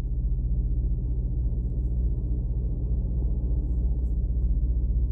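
Steady low droning hum with a fine, even pulsing, unchanged throughout.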